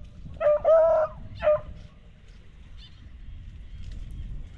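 Hunting beagles baying in short calls, three in the first second and a half, the middle one held a little longer. This is the hounds giving tongue as they follow a rabbit.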